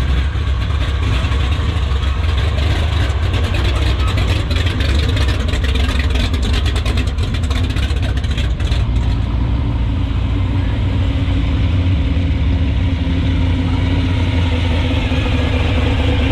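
Classic car engines rumbling deep and steady as the cars drive slowly past at close range.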